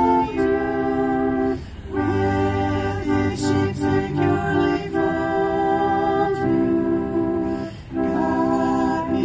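Music of held chords moving phrase by phrase, with short breaks about two seconds in and again near eight seconds.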